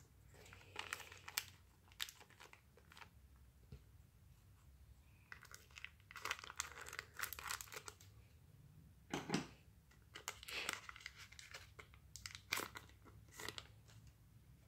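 Foil wrapper of a Pokémon trading card mini pack being torn open and crinkled by hand, in several short bursts of crackling.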